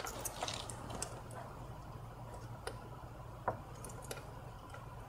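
Faint, scattered clicks and ticks of a hand tool backing a T30 Torx screw out of a bracket on the plastic intake manifold of a 2.0T TSI engine.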